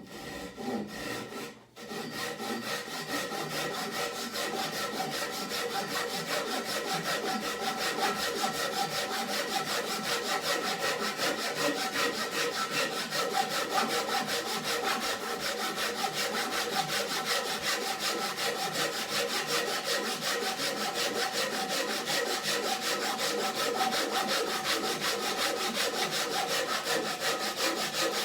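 Japanese ryoba pull saw cutting through a cedar 4x4: a few short starting strokes, a brief pause, then fast, even back-and-forth strokes of the blade through the wood, with a ringing tone from the blade over the rasp of the teeth.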